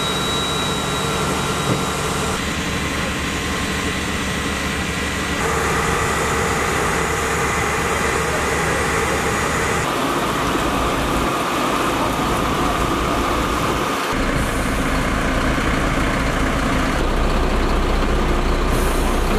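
Fire engines running at a standstill: a steady engine drone with a few steady tones above it. The character of the drone changes abruptly several times.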